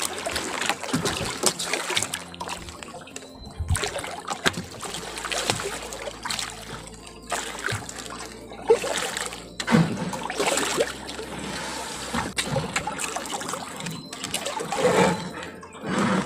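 Water splashing and sloshing against a wooden boat's hull as a large stingray thrashes at the surface on a longline, in irregular bursts with a few sharp knocks.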